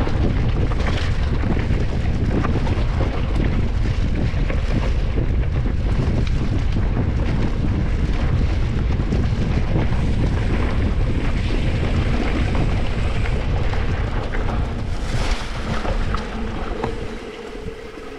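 Wind buffeting the microphone of a camera on a moving mountain bike, a steady low rumble with a few knocks from the trail; it eases off near the end.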